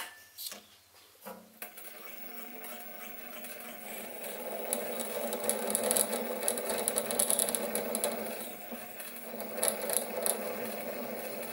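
Sieg SC3 mini lathe starting after a few clicks about a second in, then running steadily while a 4.2 mm drill bit in the tailstock feeds into the metal steam chest held in the spinning four-jaw chuck. A scratchy, crackling cutting noise builds from about four seconds in over the motor's hum.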